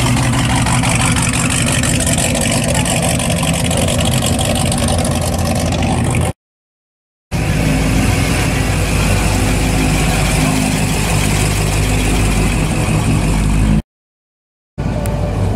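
Old cars' engines and exhausts running with a low, steady rumble as cars drive slowly past one after another. The sound cuts to silence for about a second twice, between the passes.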